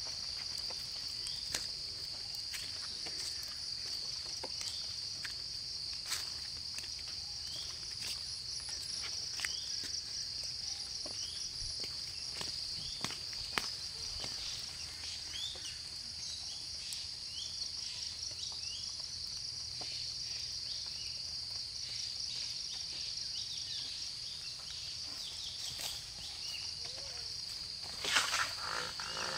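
Steady, high-pitched outdoor insect chorus of crickets or similar insects, with scattered short chirps and a few sharp clicks over it. A brief louder rustle comes near the end.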